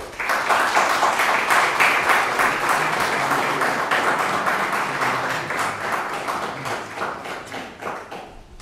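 Audience applauding, starting all at once and slowly dying away over the last few seconds.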